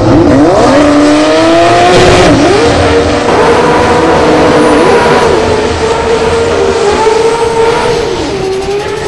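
Drag race car engine revving hard during a burnout: the pitch climbs steeply in the first second, then is held high with a few brief dips and pick-ups.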